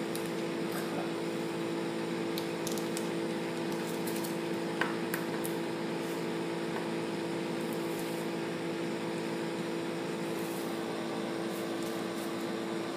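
Steady background hum with a faint click about five seconds in.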